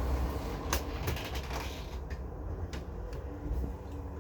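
Low steady rumble with a string of sharp clicks and knocks from a window air conditioner being handled during removal.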